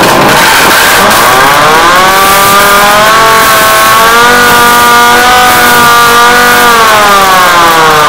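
Emergency alert siren wailing over a loud hiss: its pitch rises about a second in, holds steady through the middle, then begins to fall near the end.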